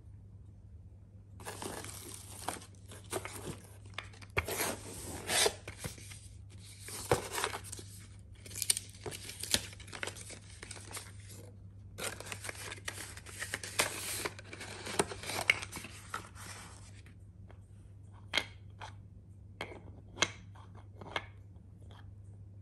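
Tissue paper and packaging rustling and crinkling in dense bursts as a wooden peg toy is unwrapped and lifted from its box. After about 17 seconds this gives way to a few sharp clicks and taps of wooden pegs and discs being handled on the toy's wooden base.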